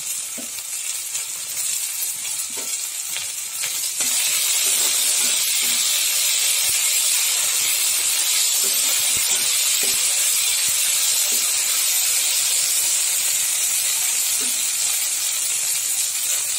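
Onions, tomatoes and green chillies sizzling in hot oil in a kadai while ginger-garlic paste is stirred in with a spatula. The sizzle grows louder about four seconds in, with faint scrapes of the spatula.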